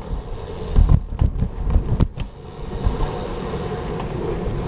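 Wind rumbling on the microphone of a moving bicycle, with a few sharp knocks about one to two seconds in.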